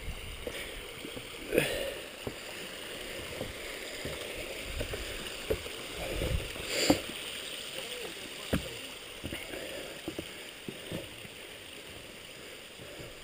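Footsteps knocking and clunking on the loose wooden planks of a rickety boardwalk, with a steady rush of running stream water under it. The loudest knock comes about seven seconds in.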